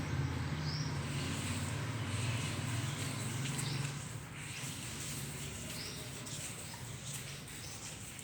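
Grout being worked into the joints of a wet marble floor: steady scraping and rubbing against the stone. A low hum runs underneath, drops about four seconds in, and fades out soon after.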